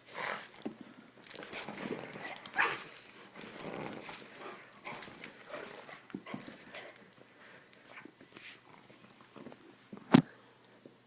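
A pug and a mastiff puppy play-fighting: irregular scuffling and short dog sounds, with one sharp, loud sound about ten seconds in.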